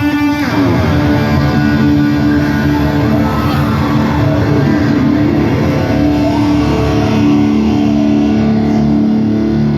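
A hard rock band playing live at high volume: electric guitars and bass holding sustained notes over a steady, dense backing.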